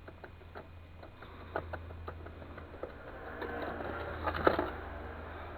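Dry powdery mix being scraped and crumbled by hand: scattered light clicks and rustles, then a denser scraping rush with a sharp click about four and a half seconds in.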